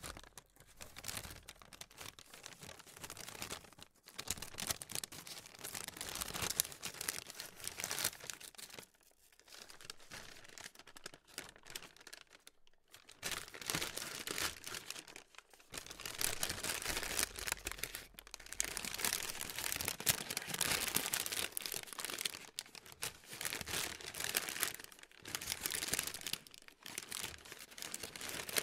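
Paper being crumpled and scrunched: a dense crunchy crackling that comes in spells, with brief pauses every few seconds.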